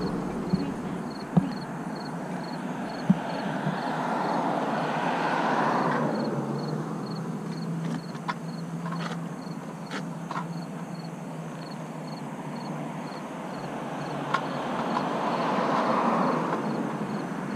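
Noise of a moving motorcycle, wind and road rush swelling and fading twice, with a few sharp clicks and a faint high ticking about three times a second.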